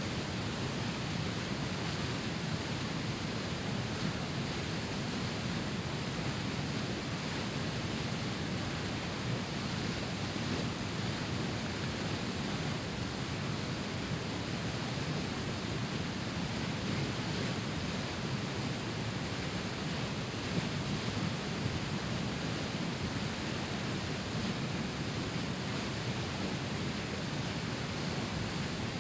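Whitewater rapids of a swollen river rushing over rock ledges: a steady, unbroken rush of churning water.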